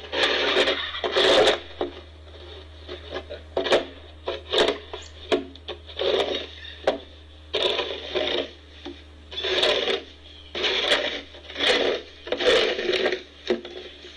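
Snow shovel scraping and pushing snow across packed snow, in repeated strokes about once a second.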